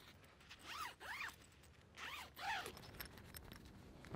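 A hammock bug-net zipper being slid along its track by hand, two short quiet zipping passes about a second apart.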